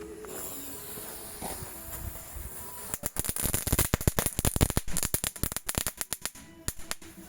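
Fireworks going off: a hiss, then about three seconds in a rapid run of sharp cracks and pops that lasts about three seconds and then stops.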